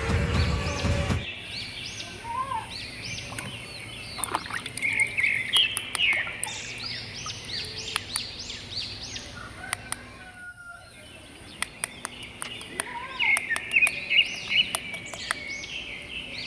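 Music cuts off about a second in, then birds chirping with many short, quick calls.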